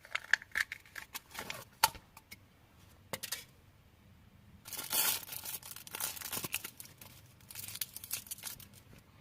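Wrapper of a Milka chocolate surprise egg being torn open and crinkled by hand: small clicks and crackles, then several bursts of tearing and rustling.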